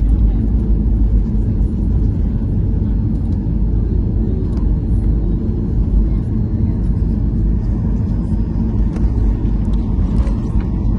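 Steady low rumble heard inside the cabin of a Boeing 737-800 taxiing: its CFM56 engines at idle thrust and the airframe rolling along the taxiway.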